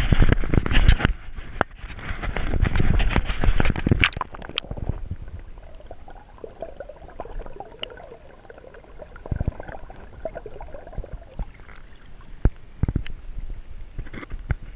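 Splashing and handling noise from a GoPro being dipped into a shallow mountain stream for about the first four and a half seconds. The sound then turns muffled and quiet underwater, with a faint gurgle of the stream and a few sharp knocks. Brighter splashing returns near the end as the camera comes back out of the water.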